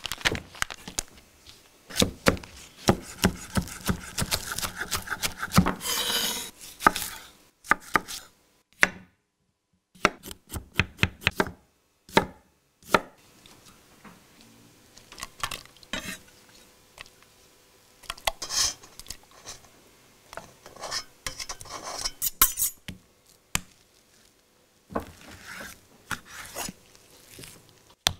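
Kitchen knife chopping and slicing on a wooden cutting board, sharp knocks coming singly and in quick runs, with paper crinkling as a butcher-paper parcel is unwrapped near the start.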